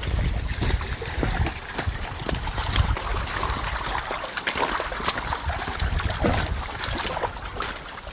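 Creek water running steadily, with a low wind rumble on the microphone and scattered short crunches of footsteps.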